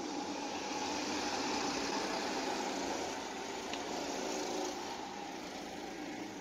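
Small motors running in a steady mechanical hum under a hiss, growing louder over the first two seconds and easing off after about five seconds.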